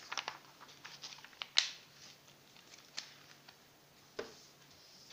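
Scattered small clicks and taps, the sharpest about one and a half seconds in, over a faint steady low hum.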